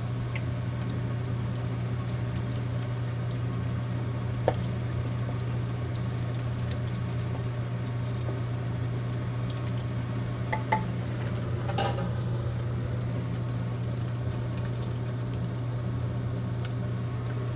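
Jerusalem artichoke pieces deep-frying in a pot of hot oil: a steady bubbling sizzle over a steady low hum. A few light clicks of a metal utensil against the pot come through.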